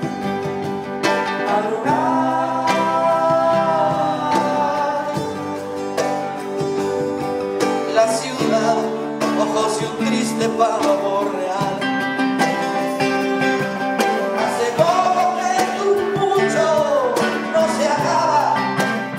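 Live acoustic band music: acoustic guitars playing with hand percussion hits, and a melody line that slides up and down in pitch over them.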